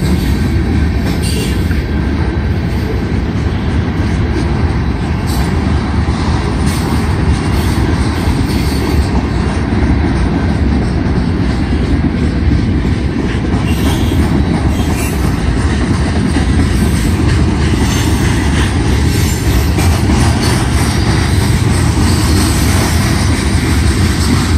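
Freight train of boxcars and tank cars rolling past: a loud, steady rumble of steel wheels on the rails.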